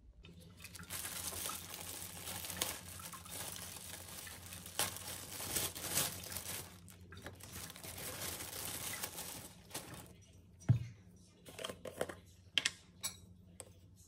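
Rustling, crinkling handling noise with scattered clicks for about ten seconds, then a few separate knocks and clicks, the loudest about ten and a half seconds in.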